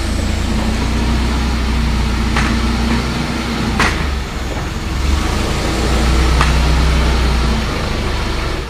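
Forklift engine running while the forklift moves a load, its engine speed shifting a few times, with a few sharp clanks from the mast and load.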